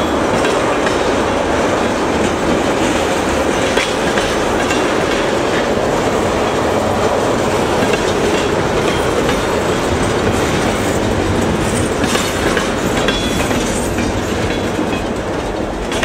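Freight train tank cars rolling past with steel wheels running steadily on the rails. The sound eases slightly near the end as the last car clears.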